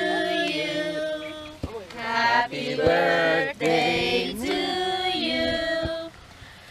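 A group of people singing together in held notes, breaking off near the end.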